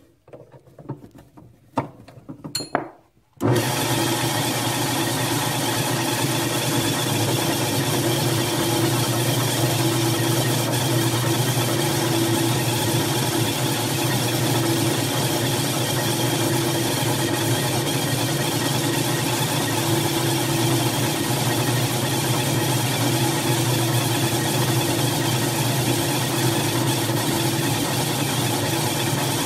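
A few light clicks of hands working at the chuck, then about three and a half seconds in a bench drill press with an abrasive disc in its chuck switches on and runs at a steady speed with a constant motor hum.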